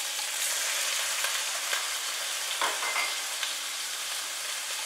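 Carrots, garlic and zucchini sizzling in olive oil in a large aluminium pot on a gas hob: a steady frying hiss, with a few light knocks about halfway through.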